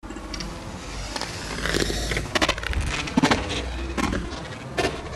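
Footsteps scuffing on a gritty tarmac driveway close to a ground-level microphone, a step about every three-quarters of a second in the second half, over a low steady rumble.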